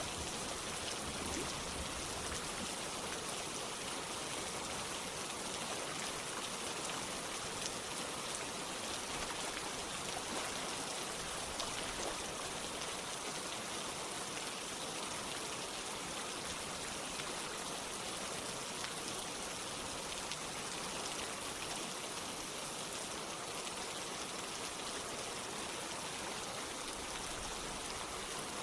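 Steady rain falling together with running water, an even hiss that does not change.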